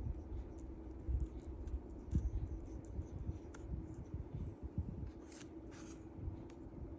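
Light handling noises from working on a Dell computer during a RAM upgrade: irregular low bumps with a few short scrapes and clicks, two of them close together about five and a half seconds in, over a faint steady hum.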